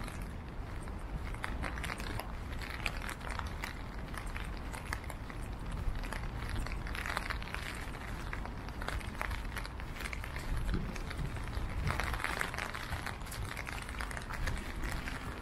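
Rainy city street ambience: a steady low rumble under many small, scattered crackling ticks.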